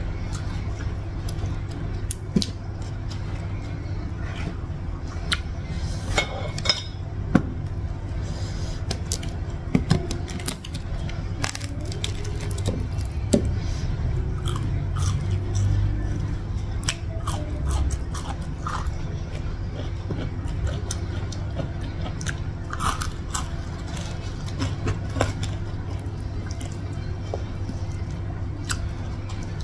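Close-up chewing and crunching of food eaten by hand, with scattered sharp clicks, over a steady low hum.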